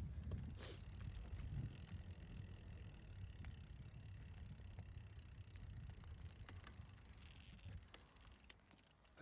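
Mountain bike riding down a trail: low rumble of tyres and wind on the microphone, with scattered light clicks and rattles from the bike. It eases off toward the end.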